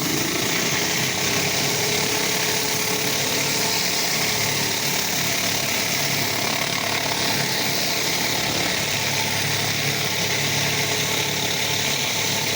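Gas-engine pressure washer running steadily while high-pressure water sprays from the wand in a constant hiss. The engine's pitch climbs right at the start, then holds.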